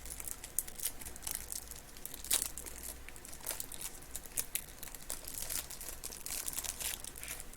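Baseball cards and their plastic wrapping being handled: faint crinkling with a scatter of light clicks and rustles.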